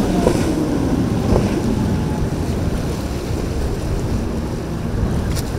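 Wind buffeting the microphone over surf, with the low rumble of boat engines running through the inlet.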